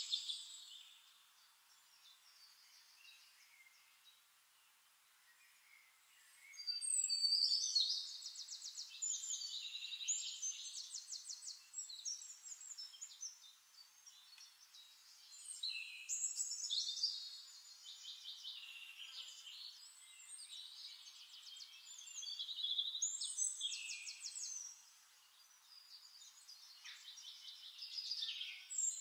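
Songbirds chirping and singing rapid high trills in repeated phrases, faint for the first few seconds, then louder from about seven seconds in.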